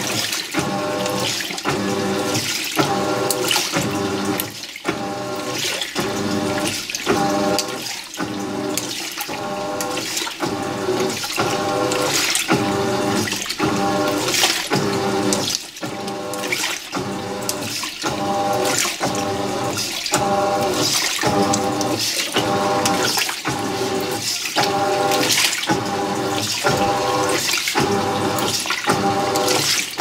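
Haier top-load washing machine agitating a heavy, overloaded load of towels in water: the wash plate drives back and forth in quick, even strokes, the motor humming on each stroke over steady water sloshing.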